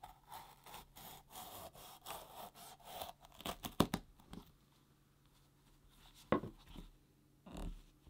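Knife slicing rings off a yellow bell pepper: a quick run of crisp, crunchy cuts through the flesh, then a few sharp clicks, followed by quiet and two single knocks later on.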